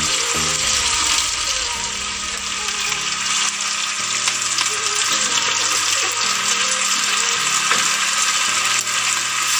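Chicken pieces sizzling as they fry in sweet soy sauce in an aluminium wok, stirred with a metal fork. A steady hiss of frying runs throughout, with soft background music of held low notes underneath.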